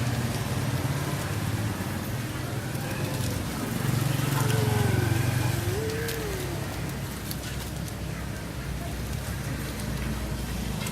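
A motor vehicle's low engine rumble, swelling to its loudest about halfway through and then easing off, like a vehicle passing.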